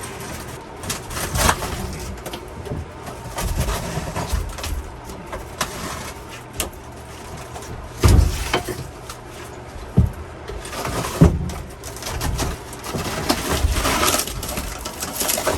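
Bulky wooden camper cabinet being wrestled out of a van interior: irregular knocks and heavy bumps, the loudest about 8, 10 and 11 seconds in, with scraping and rubbing of wood against the van's walls and floor.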